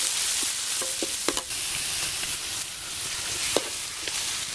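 Spice paste sizzling in hot oil in a large steel wok, stirred with a metal ladle that clinks and scrapes against the pan a few times.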